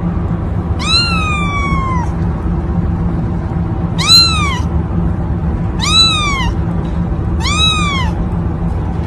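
A kitten meowing four times, each meow rising then falling in pitch, the first one the longest, over a steady low hum.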